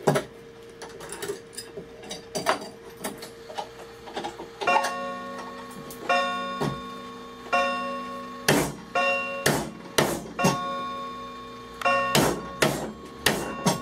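A steel chisel is driven into hardwood with a metal-headed hammer, chopping out a mortise. The blows are sparse for the first few seconds, then come about once a second. Each strike gives a sharp knock and a clear metallic ring that hangs on until the next blow.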